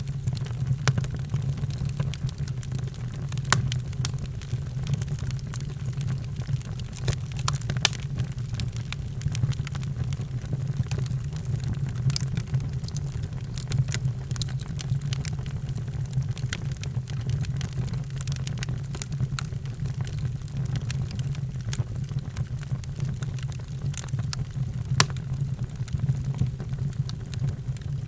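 Wood fire crackling in a fireplace: a steady low rumble under irregular sharp pops and snaps, one of the loudest about three-quarters of the way through.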